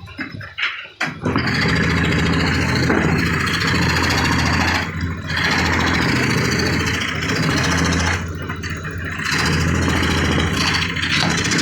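A few light taps, then an electric woodworking power tool's motor starts about a second in and runs steadily, cutting wood, its sound dipping briefly twice.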